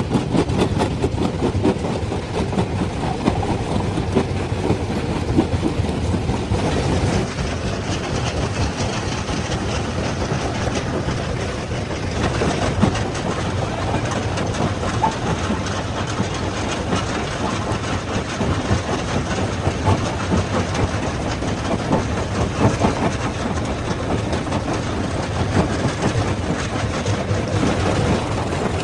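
Stone crusher running continuously with rock being crushed in it: a dense, unbroken clatter of small impacts over a heavy low machine rumble.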